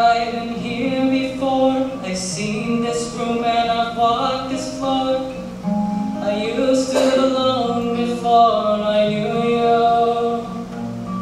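A young male voice singing a song to his own acoustic guitar accompaniment, with held notes that move in pitch.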